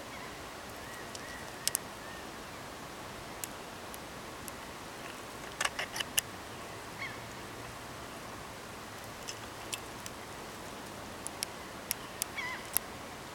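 Light metallic clicks and taps as the hammers and lanyard of a stainless 10-gauge double-barrel signal cannon are handled and readied for firing, with a quick cluster of clicks about six seconds in. Faint bird chirps come now and then over a steady outdoor hiss.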